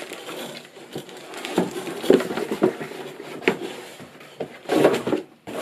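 Unboxing handling noise: a mechanical keyboard and its packaging being moved about, with irregular small knocks, clicks and rustles.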